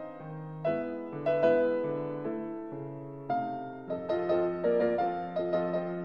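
Background piano music: notes and chords struck one after another, each dying away, with a fresh run of notes coming in about three seconds in.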